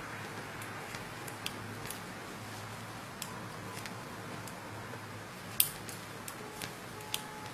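Knitting needles clicking and tapping against each other now and then as stitches are purled, with one sharper click about five and a half seconds in, over a faint steady hum.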